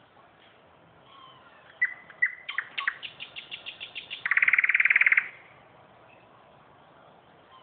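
A small songbird singing one song phrase: a few clear whistled notes, then a quickening run of notes, ending in a fast, loud trill that stops abruptly.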